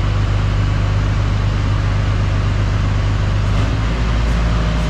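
New Holland CX5090 combine harvester's diesel engine running steadily; its note changes a little under a second before the end.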